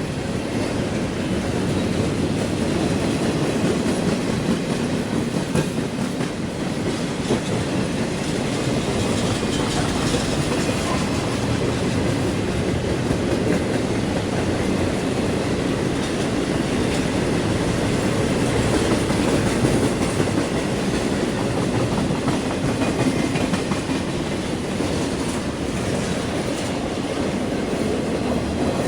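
A railroad train rolling past, its wheels running on the rails in a steady, unbroken noise.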